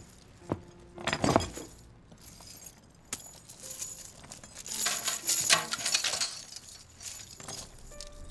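Steel handcuff chain jangling and clinking in several short bursts, the longest and loudest a little past the middle, as the cuffs are handled against the back of a metal chair.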